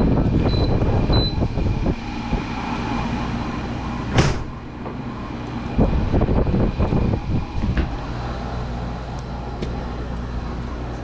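Window air-conditioning unit running: a steady mechanical hum with an uneven low rumble, and one sharp click about four seconds in.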